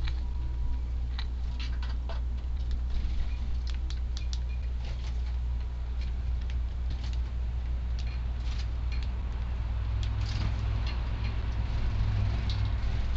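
Eurasian tree sparrows pecking and hopping at a feeding spot: scattered small clicks and taps. Strong wind rumbles on the microphone throughout and gusts harder about ten seconds in.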